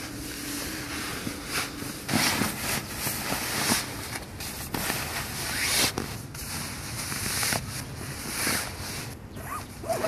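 Sleeping bag fabric rustling and swishing in repeated irregular strokes as the bag is stuffed and pressed down into its stuff sack.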